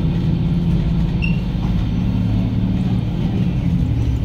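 Diesel railcar heard from inside the passenger cabin while running: a steady low engine drone with the noise of the running gear on the rails.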